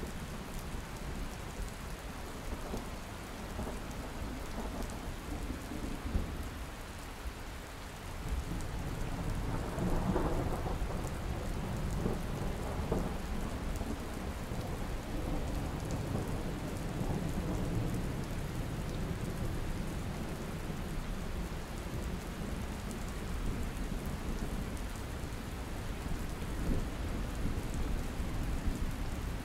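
Steady rain falling on pavement and rooftops, with a low rumble of thunder rolling in about eight seconds in and lingering under the rain.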